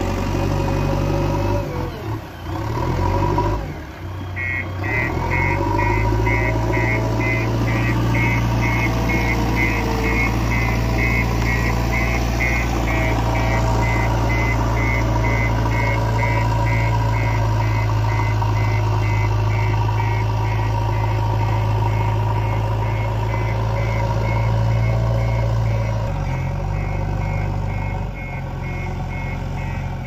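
JCB 3DX backhoe loader's diesel engine running steadily, with its reverse alarm beeping rapidly and evenly from about four seconds in.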